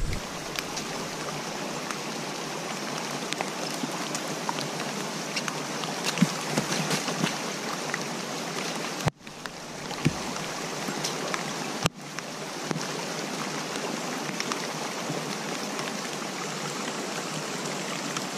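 Steady rain with rainwater running, heard as an even hiss flecked with small scattered taps. It cuts out for a moment about halfway through and again a few seconds later.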